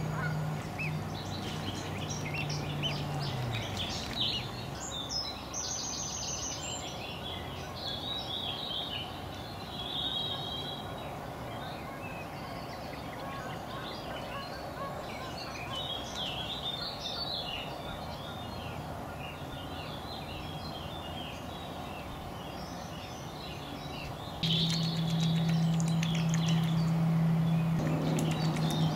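Evening songbird chorus: many birds singing and chirping at once. A low hum fades out in the first few seconds, and from about 24 seconds in a speedboat's engine drones steadily, louder than the birdsong.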